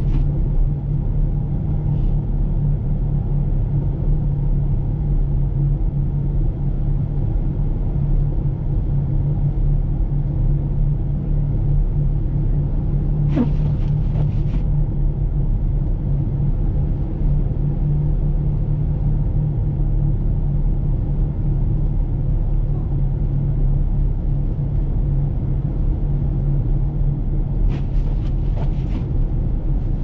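Steady low rumble of a car driving on a snow-covered road, heard from inside the cabin, with a few brief clicks about halfway through and again near the end.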